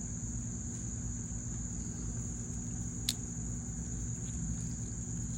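Crickets chirping in a steady, continuous high trill, over a low steady hum. A single sharp click about three seconds in.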